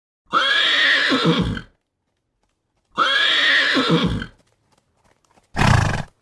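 Horse whinnying twice, each call about a second and a half long and falling in pitch, then a short, lower sound near the end.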